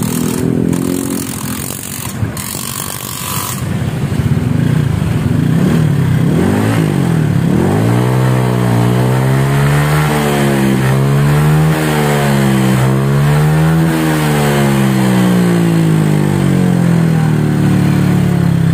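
Honda Vario scooter's single-cylinder engine breathing through an aftermarket SKR racing muffler, idling for a few seconds, then revved up and down several times with the rear wheel spinning free on the centre stand, before easing back down near the end.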